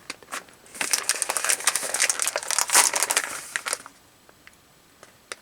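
Plastic snack packet crinkling and rustling as it is handled and opened, for about three seconds, then a lull with a single click near the end.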